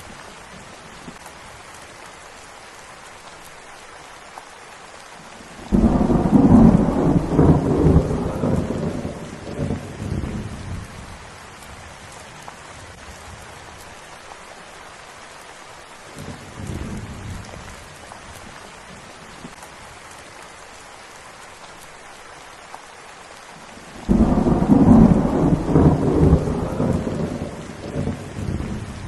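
Steady rain falling, with rolls of thunder. A loud roll breaks in about six seconds in and rumbles on for several seconds, a fainter rumble follows midway, and another loud roll starts near the end.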